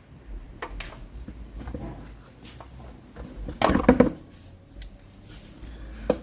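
Metal hand tools and parts clinking and knocking during work under a car, with a louder clatter a little past the middle.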